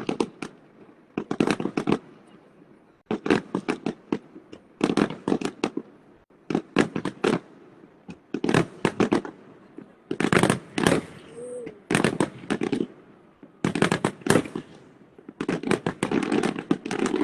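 Fireworks going off in clusters of sharp bangs and crackles, a new cluster every second or two.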